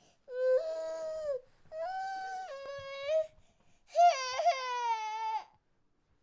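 Infant crying in three drawn-out wails separated by short breaths, the third the loudest with a break in the voice partway through.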